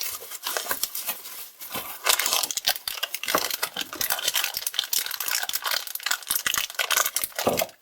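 Packaging being crinkled, rustled and torn open by hand: a dense, irregular crackling throughout.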